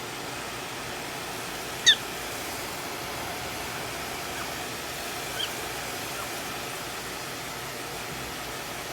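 Hair dryer blowing steadily, with two short, high-pitched chirps from a prairie dog: one loud about two seconds in, and a fainter one past the middle.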